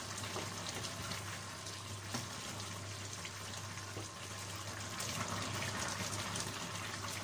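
Chicken and potato stew simmering in a metal pan, a steady bubbling hiss, as a spoon is stirred through it with a few faint knocks against the pan.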